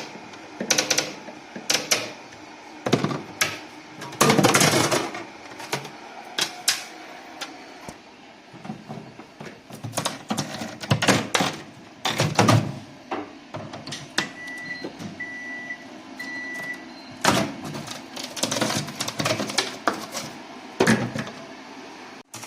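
Irregular clicks, knocks and clatter of hands and tools working on a refrigerator. Three short, even electronic beeps sound about two-thirds of the way through.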